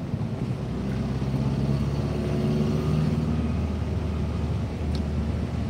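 Car engine and road noise heard from inside the cabin while driving, a steady low hum that grows a little louder about a second in.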